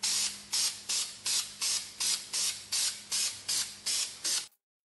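Aerosol can of Krylon flat black spray paint sprayed in a rapid series of short hissing bursts, about a dozen in four and a half seconds, cutting off suddenly near the end.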